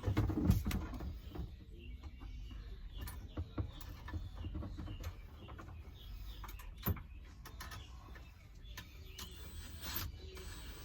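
Handling noise: scattered light clicks and knocks over a low hum, louder in the first second.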